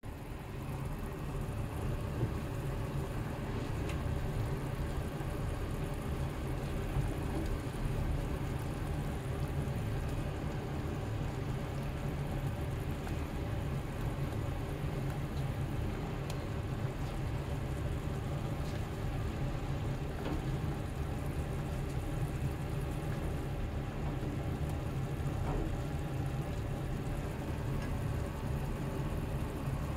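Beef simmering in tare sauce in a small pan on a gas burner, bubbling and sizzling steadily over a steady low hum, with a few faint clicks.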